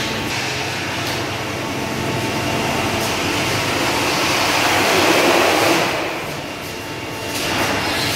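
Machinery of an automated IBC pallet destacker line with roller conveyors running, a steady noisy hum. It swells to its loudest about five seconds in, eases off for a moment, and picks up again near the end.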